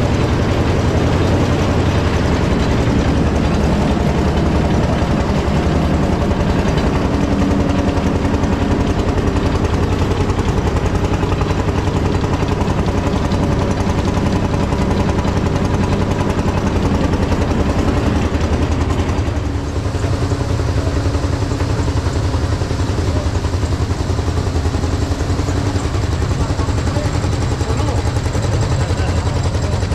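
Vintage tractor engine running steadily under load, driving a threshing machine by a long flat belt, together with the thresher's steady rumble. The sound dips briefly about two-thirds of the way through.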